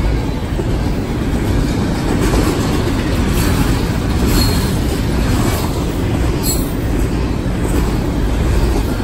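Double-stack container freight train rolling past at speed: a steady, loud rumble of steel wheels on rail, with scattered clicks and clanks as the cars pass.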